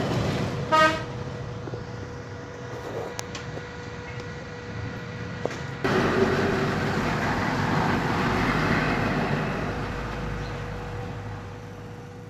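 Road traffic: a short vehicle horn toot about a second in, then the broad noise of passing traffic, which swells suddenly near six seconds and slowly fades away.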